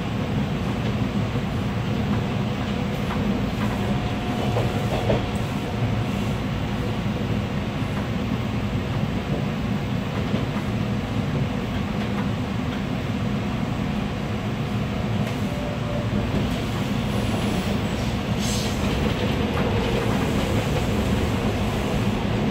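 Toronto subway train running along surface track, heard from inside the front car: a steady rumble of steel wheels on rail with faint clickety-clack from the rail joints.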